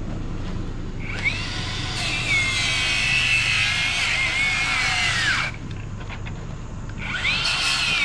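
Circular saw spinning up with a rising whine and cutting into a fallen tree trunk, its pitch sagging and wavering under load, then winding down about five seconds in. It starts up again near the end.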